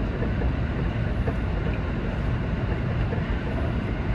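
Seibu 20000 series electric train running along the line: a steady rumble of wheels on rail and running gear, heard from inside the leading car.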